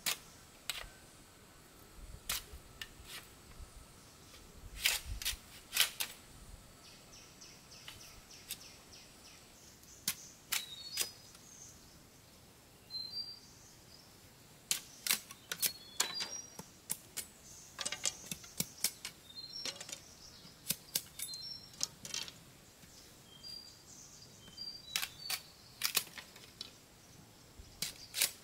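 Irregular sharp clicks and knocks, coming singly and in small clusters, with short high bird chirps from about ten seconds in.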